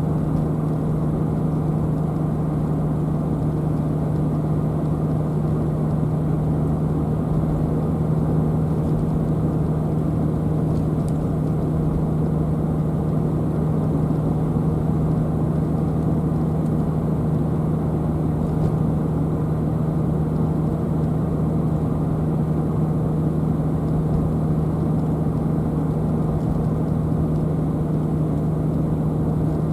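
Car driving at a steady speed: an even rumble of engine and road noise with a steady low hum.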